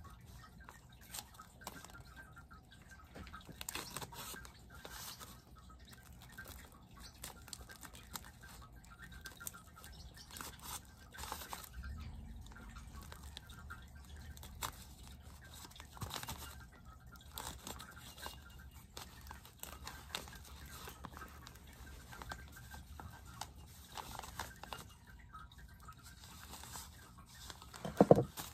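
Paper and plastic wrapping being handled, with scattered crinkles and rustles, and one loud bump near the end.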